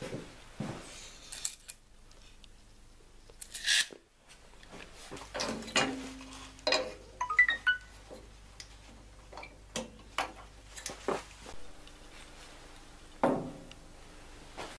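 Scattered knocks and metallic clinks as a wooden block and an aluminium rip fence are handled and set on a table saw's steel top, with a short ringing metal clink a little past halfway.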